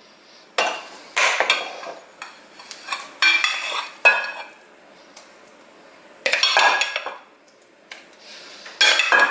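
Metal spoon scraping and clinking against a glass mixing bowl and a ceramic baking dish as a thick ground-meat mixture is scooped and dropped in. It comes in about six separate bursts, some with a short ringing clink.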